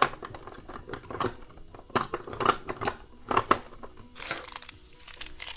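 Plastic blind-bag toy packaging crinkling and rustling as it is handled, in irregular bursts with small clicks.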